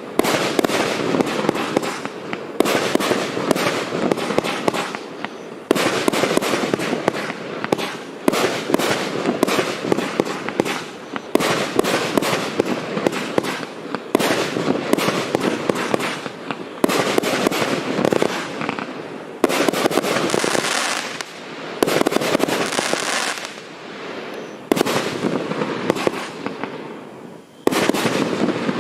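GAOO 'Rezydent' F3 fireworks battery with 20–30 mm multi-calibre tubes firing a dense, rapid barrage of shots and bursts, with short let-ups every few seconds.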